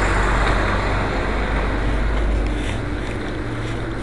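Loud, steady outdoor noise with a deep rumble, slowly easing off.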